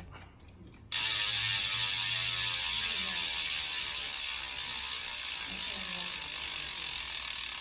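Industry Nine Hydra rear hub freewheeling as the wheel spins and coasts: a loud, high-pitched ratcheting buzz from the pawls that starts suddenly about a second in and slowly fades as the wheel slows.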